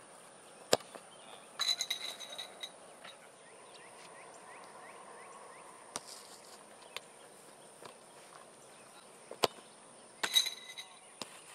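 Soccer balls being kicked on a grass pitch: two sharp thumps of foot on ball, about a second in and near the end, plus lighter touches. Each hard kick is followed within a second by a brief ringing clang. Under it all runs a steady high insect drone.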